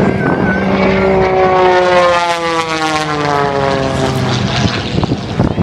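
Propeller airplane flying past, its engine and propeller drone falling steadily in pitch as it goes by.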